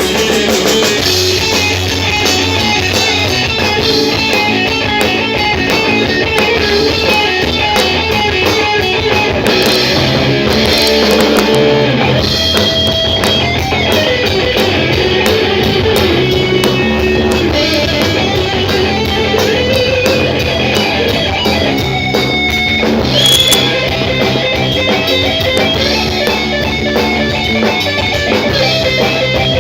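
Rock band playing live: guitar over drums.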